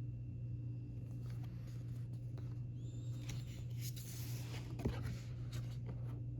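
Album packaging being handled: scattered clicks and light scrapes, a rustle of paper or plastic about four seconds in, and a sharp knock just before five seconds. A steady low electrical hum runs underneath.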